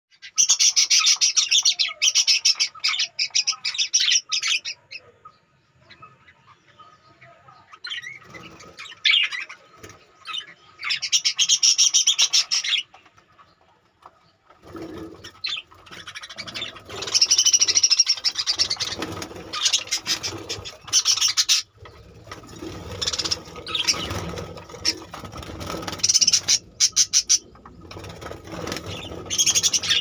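Budgerigars chattering and screeching in repeated loud bursts. From about halfway through, rustling and knocking sounds run beneath the calls while a hand reaches in to catch one.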